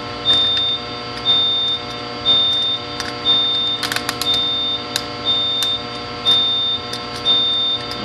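Notifier fire alarm panel's trouble beeper sounding a steady high beep about half a second long, once a second, signalling a lost SLC (signaling line circuit) while the addressable module is disconnected. A steady electrical hum runs underneath, with a few small clicks about four and five seconds in.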